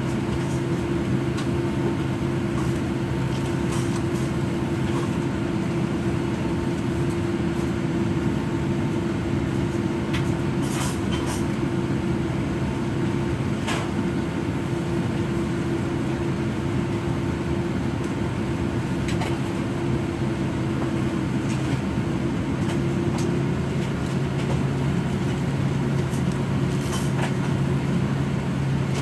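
Steady cabin hum inside a Boeing 787 Dreamliner taxiing, the engines at taxi power, with a few faint clicks.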